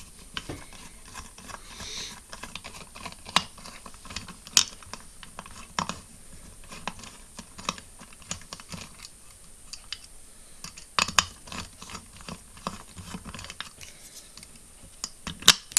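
Irregular small clicks and metallic taps of a precision screwdriver and fingers working the screws and parts of an opened hard disk drive's head and magnet assembly, with a few sharper knocks scattered among them.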